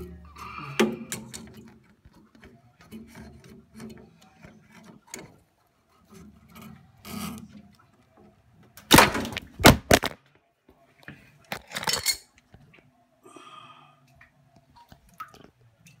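Pliers and hands working the plastic flow adapter out of a Worcester Greenstar combi boiler: scattered clicks and scrapes of tool on fittings, with a burst of loud sharp knocks about nine seconds in and another near twelve seconds.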